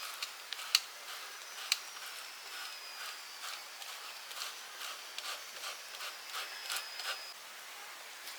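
Cooking over an open wood fire: irregular sharp crackles and clicks, with two louder knocks in the first two seconds. A faint, thin high tone falls slightly from about a second in until near the end.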